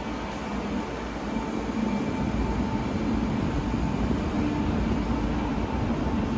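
Moscow Central Circle electric train: a steady low rumble and running noise with a faint steady whine.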